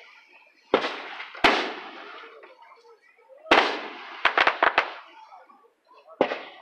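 Aerial fireworks shells bursting. Booms come at about three-quarters of a second, one and a half seconds and three and a half seconds in, each with a lingering echo, then a quick run of about five sharp cracks, and another boom near the end.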